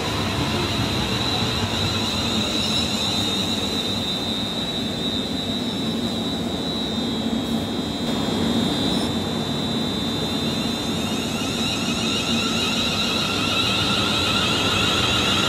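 London Midland Class 350 Desiro electric multiple unit running past at speed: a continuous rumble of wheels on rail with a steady high-pitched whine from its traction equipment.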